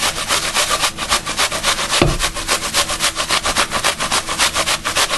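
An apple being grated on a metal hand grater: quick, rhythmic rasping strokes, about six a second, with one low thump about two seconds in.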